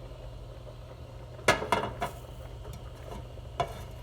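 Cookware and utensils clinking: a quick run of three sharp clinks about a second and a half in, and one more near the end, over a steady low hum.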